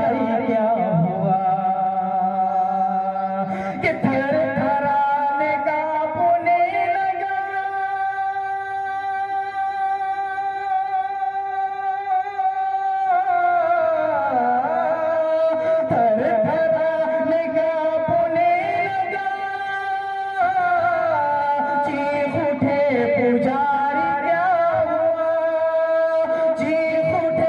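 A man's solo voice chanting a naat, unaccompanied and amplified through a microphone, holding long steady notes between ornamented melodic turns.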